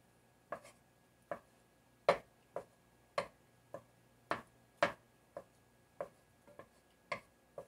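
Wooden spoon knocking against the sides of a pot while stirring melting butter: a run of short sharp clicks, about two a second and a little uneven.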